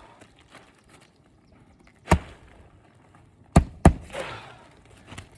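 Three sharp knocks of nails being driven into roof shingles, one about two seconds in and then two close together about a third of a second apart.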